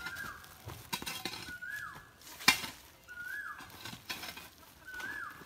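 A bird repeating a short whistled note that rises and then drops, four times about a second and a half apart. Sharp clinks and knocks sound in between, the loudest about two and a half seconds in.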